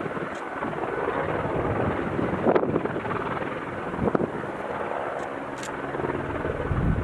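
Strong wind buffeting the microphone in a steady rushing noise, with a few brief gusts.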